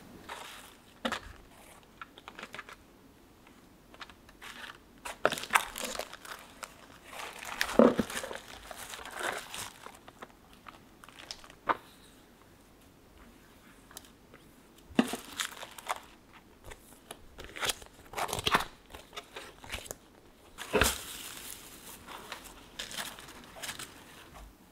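Plastic packaging and bubble wrap rustling and crinkling as hands unpack a box, in irregular bursts with a few sharp clicks and quiet gaps between.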